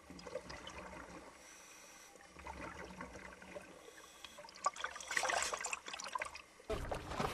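Water sloshing and splashing as a hooked shark thrashes at the surface, picked up at the waterline. It is faint at first, the splashing grows about five seconds in, and near the end a louder wash of water comes in suddenly.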